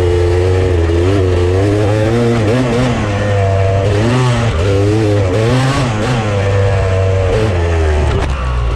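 Off-road vehicle engine running over a steady low drone, its pitch rising and falling again and again as the throttle is worked over rough ground.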